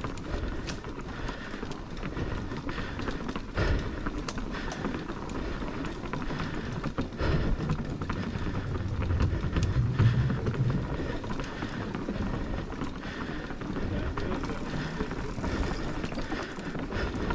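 Mountain bike ridden over wooden boardwalk planks, recorded from a handlebar-mounted camera: a steady rolling rumble from the tyres, with many sharp knocks and rattles as the bike jolts over the planks.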